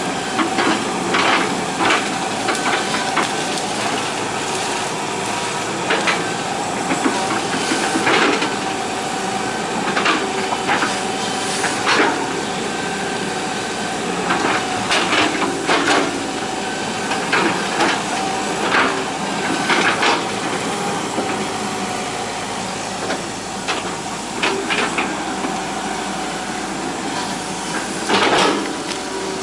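Hitachi EX120 hydraulic excavator at work: the engine and hydraulics run steadily with a steady whine, broken by frequent sharp metallic clanks and scrapes.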